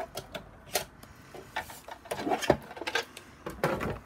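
Kraft card being cut and handled on a sliding-blade paper trimmer: a string of irregular clicks, taps and scrapes from the blade head, the card and the trimmer's plastic base.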